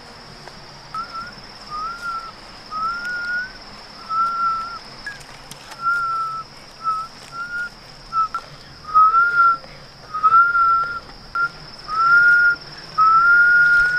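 A person whistling a slow, loose tune of about a dozen short notes, many sliding slightly upward, louder and longer toward the end. Behind it, a steady high-pitched insect drone.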